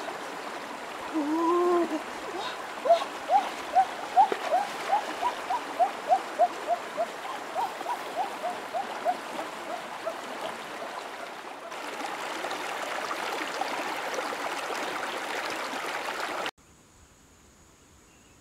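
Shallow stream running and splashing over rocks, with a repeated short rising chirping call, about two or three a second, that fades away over several seconds. The water sound cuts off suddenly near the end.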